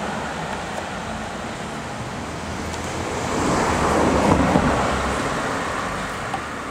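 Street traffic noise: a steady rush, with a passing vehicle that swells about three and a half seconds in and then fades away.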